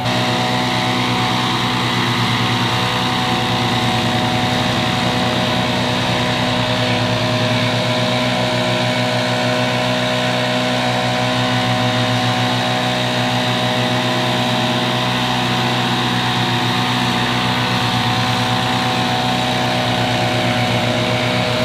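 Small engine on lawn equipment running steadily at a constant high speed, with a steady whine above the engine note.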